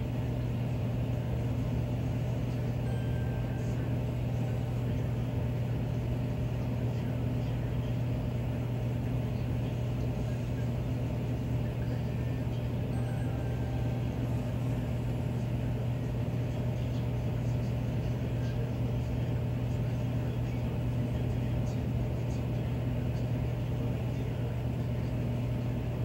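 Miller E2 furnace running in cooling mode: a steady low hum with even air-rush noise over it, unchanging in pitch and level.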